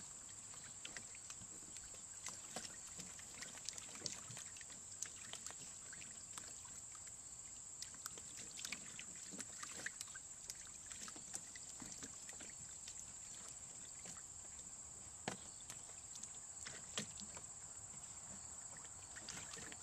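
Faint light splashing and scattered small clicks and knocks over a steady high hiss.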